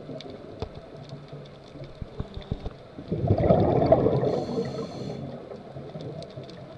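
Scuba diver's breathing through a regulator, heard underwater: a gurgling rush of exhaled bubbles starts a little after three seconds in and fades over about two seconds, with a short high hiss from the regulator partway through. A few faint clicks come before it.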